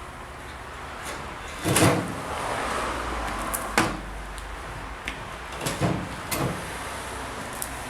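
Okinox automatic shoe-cover machine working: a loud clunk about two seconds in, followed by a steady noise for a second or so, then further clunks near four seconds and around six seconds.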